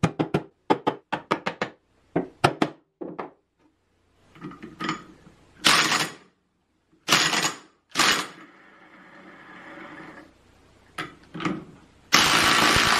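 A run of quick mallet knocks on the jointer's steel cutter-head shaft, then a cordless impact driver hammering in short bursts on the nut of a stuck pulley, breaking into a loud continuous hammering near the end.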